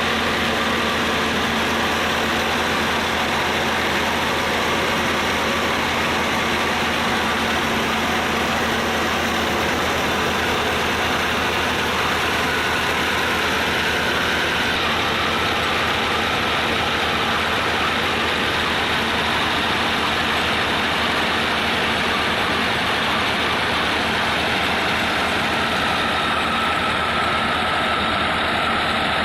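Massey Ferguson tractor engine running steadily, driving a wheat flour grinding mill, with a dense, even mechanical din that does not change.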